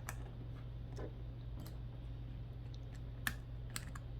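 A few light plastic clicks and taps from handling a small wireless shutter-release transmitter while a 23A 12-volt battery is fitted into it, over a steady low hum.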